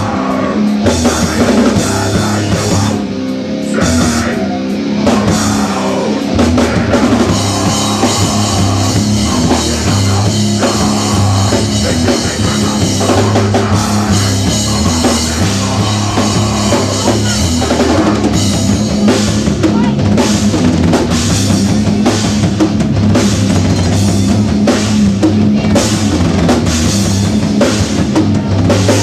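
Rock band playing live: drum kit, bass and guitar in a loud, driving rock song.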